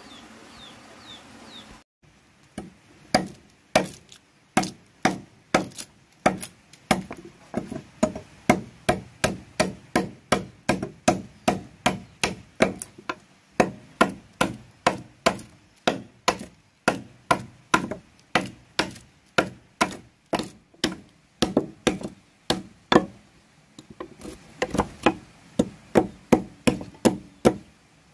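A metal blade chopping into a thick wooden plank to cut a notch in its edge: a steady run of sharp chops, about three every two seconds, with a brief pause near the end. In the first two seconds there are only faint chick peeps.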